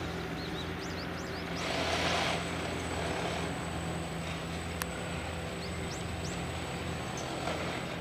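Small excavator's diesel engine running steadily while it works on the track bed, with a few short bird chirps over it.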